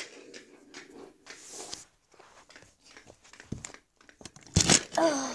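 Small plastic toy being handled: faint clicks and rustles, with one louder knock a little before the end.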